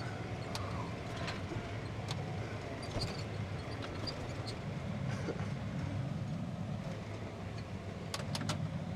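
Tractor engine running steadily under load, heard from inside the cab as a low, even drone, with a few faint clicks.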